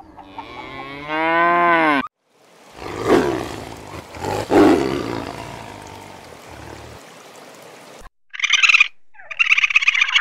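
A cow mooing, one pitched call that rises and falls. Then a white tiger growling, rough and low, loudest twice close together. Near the end come a few short high-pitched animal calls.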